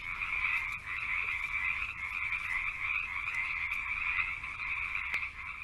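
Chorus of frogs calling, a dense high-pitched din that goes on steadily without a break.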